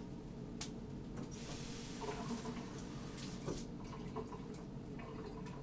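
Tap running faintly for about two seconds from just over a second in, water filling a glass.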